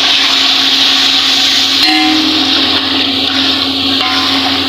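Stock (yakhni) bubbling and sizzling with oil and spices in a large aluminium pot on a gas burner: a loud, steady hiss with a low steady hum underneath.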